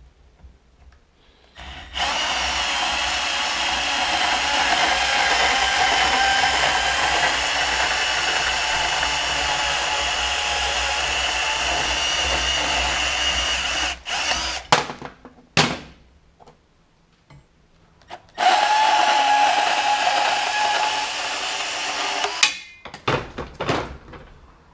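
Portable band saw cutting through a steel oil pickup tube, in a long steady run of about twelve seconds and then a shorter run of about four. Short clanks of metal parts being handled come between the cuts and after them.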